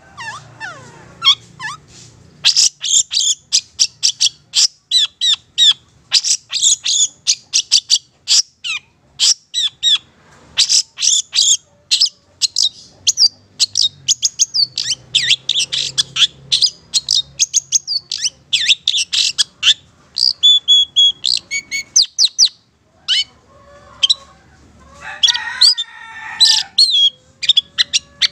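Long-tailed shrike (cendet) singing a fast, continuous chattering song of short, sharp high notes with brief pauses. A lower, rougher stretch of calls comes about three-quarters of the way through.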